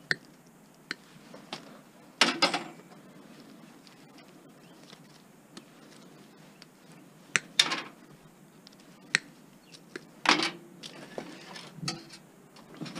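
Hand cutters snipping connectors off computer wiring: sharp snips and clicks at irregular intervals, with two short bursts of clicks and rattling about two seconds in and near ten seconds.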